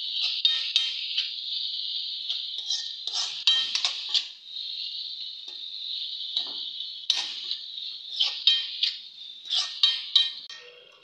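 A spoon scraping and clinking against a metal wok in irregular strokes, stirring frying onions and turmeric for a curry's spice base. Under it runs a steady high hiss.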